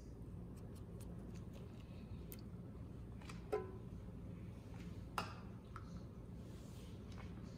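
Two light knocks of kitchen utensils over a faint low hum: the first, about three and a half seconds in, rings briefly; the second comes about five seconds in. They fit the plastic measuring cup and silicone spatula being set down after the yogurt is scraped into the bread-machine pan.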